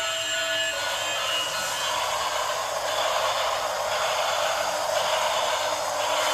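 Battery-powered toy train running on its plastic track: a steady whir of its small motor and gears. Under a second in, the sound changes from a steadier tone to a noisier whir.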